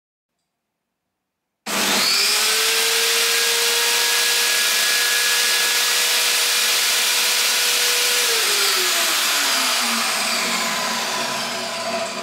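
Parkside PTKS 2000 G5 table saw started in its original hard-start state, with no soft starter: the motor comes on abruptly and is up to full speed almost at once, then runs with a steady whine. About eight seconds in it is switched off and winds down, its pitch falling.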